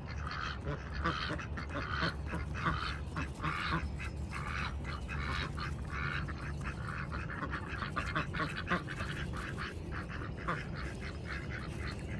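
A flock of domestic ducks quacking, with many short calls in quick succession, overlapping and running on without a break.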